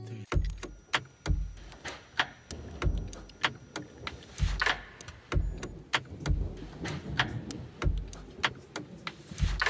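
A steady percussion beat with no melody: a low kick-drum thump about every 0.8 s with sharp clicks between the thumps.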